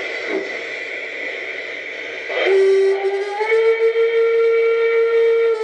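Sound decoder in an LGB 2085 garden-scale steam locomotive playing a sampled hiss of the cylinders venting steam, then a long steam whistle. The whistle starts about two and a half seconds in and steps up in pitch about a second later.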